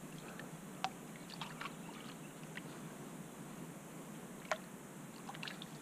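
Faint steady wash of flowing floodwater over rocks, with two short sharp clicks, one about a second in and one near the end.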